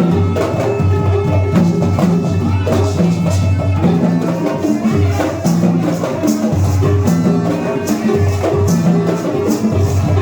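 Music with a steady beat: a repeating bass line under rhythmic hand percussion.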